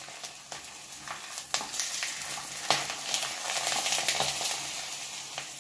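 A vadagam (sun-dried fritter) frying in hot oil in an aluminium kadai, sizzling steadily. A few sharp clicks come from the metal tongs touching the pan as it is pressed and turned.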